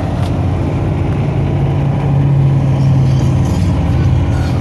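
Parked Peterbilt refrigerated box truck running at idle: a steady low engine drone that swells slightly about two seconds in and eases back after three and a half seconds.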